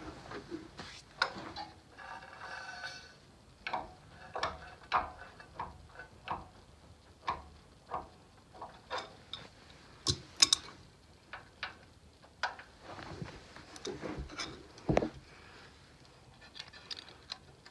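Irregular metal clicks and taps of hand tools working on a VW Beetle engine's valve gear during valve clearance adjustment, with a few louder knocks about ten and fifteen seconds in.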